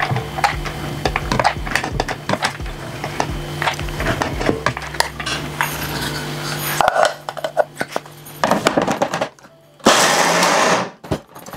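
A metal spoon scrapes and clinks as soaked chana dal is spooned into a steel mixer-grinder jar. Near the end the electric mixer grinder runs in one short burst of about a second, pulsing the dal to a coarse grind.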